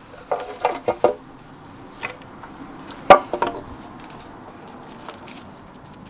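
Metal engine parts and tools clinking and clanking as they are handled during a stripdown: a quick cluster of ringing clinks in the first second, another clink around two seconds, and the loudest clank about three seconds in, then a few light clicks.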